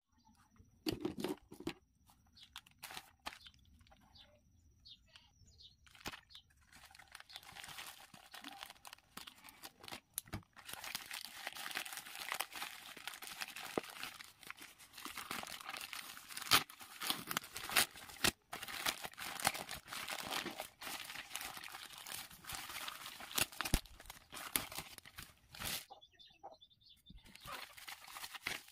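Plastic courier mailer torn open and bubble wrap handled: a few scattered clicks and rustles, then long dense crinkling and tearing of plastic with sharp crackles, broken by a short lull near the end.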